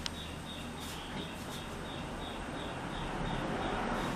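Steady background noise, with a faint high chirp repeating about three times a second and a single click near the start.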